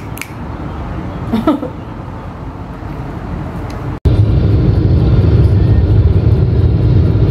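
Road noise inside a moving car: a loud, steady low rumble that starts suddenly about four seconds in. Before it there is quieter background with one short rising vocal sound.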